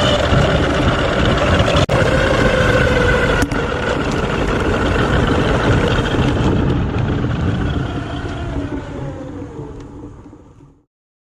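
A car running on the road, with a steady whine that slowly falls in pitch as it slows, the sound fading away near the end.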